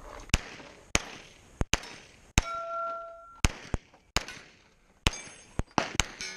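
A string of pistol shots from a Glock, about a dozen sharp cracks at an uneven pace, mixed with the clang of steel target plates being hit. One plate rings on briefly about two and a half seconds in.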